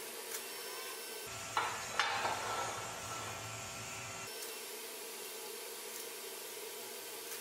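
TIG welding arc on stainless steel running with a steady hiss. About a second in it gives way to the stainless workpiece being handled, with two knocks of metal on metal. The arc hiss resumes a little past the middle.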